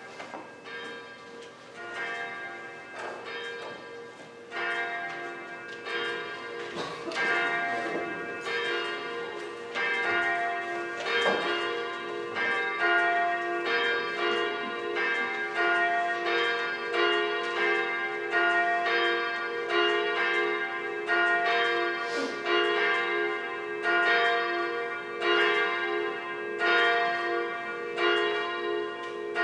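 Church bells ringing before a service, struck about once a second with long ringing overtones, growing louder over the first several seconds.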